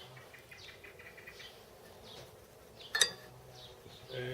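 Faint, repeated high chirping of insects or birds, with a quick run of short ticks early on and one sharp click, like a tool or metal part being set down, about three seconds in.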